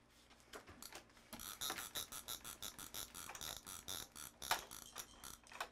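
Computer keyboard being typed on: a faint, irregular run of quick key clicks, several a second.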